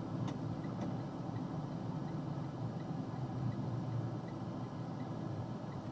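Box truck driving: a steady low engine and road rumble heard from the cab. Two sharp clicks come in the first second, followed by a light, regular ticking at about three a second.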